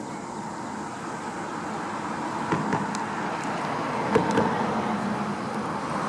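Steady rushing noise of distant road traffic that slowly grows louder, with a few faint clicks about halfway through.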